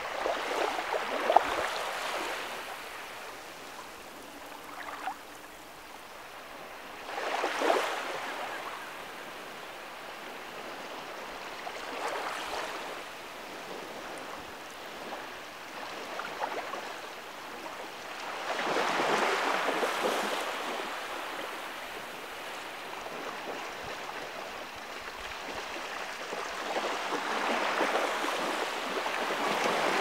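Small waves washing in over shallow sand at the water's edge, the wash swelling and falling away every few seconds. A brief sharp sound about a second in is the loudest moment.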